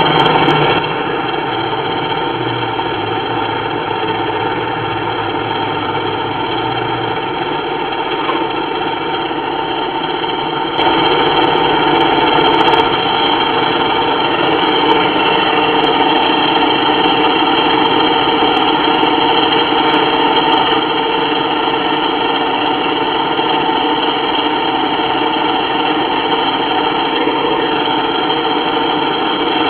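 Chainsaw engine running steadily, getting louder about eleven seconds in and holding at that level.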